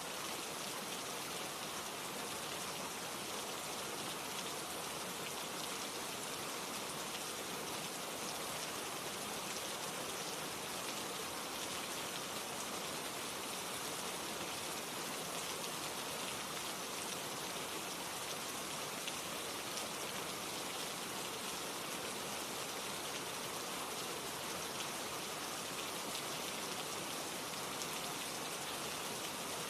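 Steady rain falling: a dense, even hiss of drops on a surface, with faint scattered drop ticks and no change in intensity.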